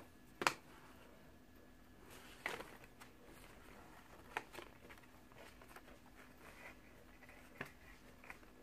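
Faint rustling and light taps as a toy blind-bag packet and a paper checklist are handled on a tabletop, with one sharper tap about half a second in.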